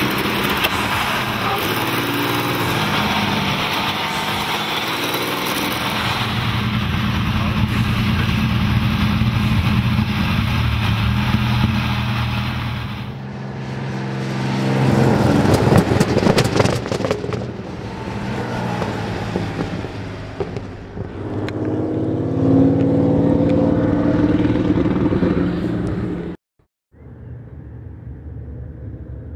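The 27-litre Rolls-Royce V12 aero engine of a 1930 Brooklands racer running under way as a steady deep drone. It grows louder and rougher about halfway through, then rises in pitch as it revs further on. The sound cuts out briefly just before the end.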